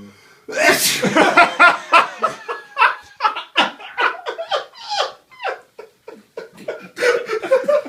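A sneeze about half a second in, let out in one sharp burst, followed by several seconds of hard, breathless laughter in rapid pulses.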